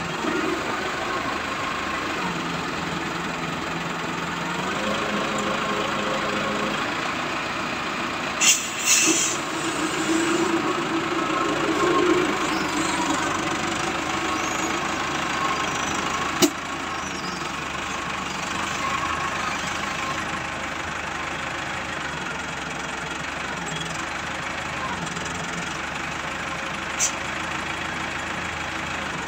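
Wheel loader's diesel engine running steadily as it empties its bucket into a dump truck. A few loud clatters come about a third of the way in, and a single sharp knock about halfway through.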